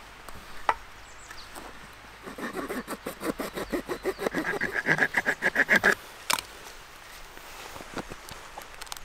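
Knife blade scraping rapidly along a wooden stick: a fast, even run of short rasping strokes, about eight a second, growing louder and stopping suddenly about six seconds in. A couple of light wooden knocks before and after.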